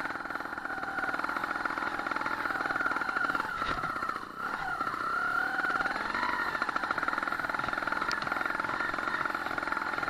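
Sherco 290 two-stroke single-cylinder trials motorcycle engine running under throttle. The engine drops off briefly a little after four seconds in, then picks up again with a rise in pitch.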